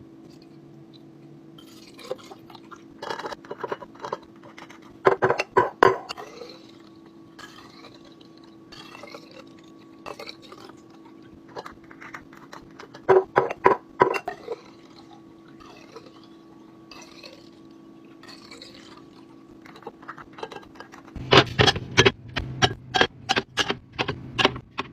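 Containers and kitchen items clinking and clattering in three bursts of rapid knocks, the last the loudest and densest, over a steady low hum.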